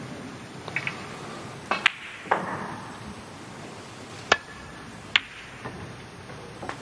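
Snooker shot over a quiet arena hush. A sharp click of the cue tip striking the cue ball comes about four seconds in, then another click under a second later as the cue ball strikes an object ball. A few fainter knocks come earlier.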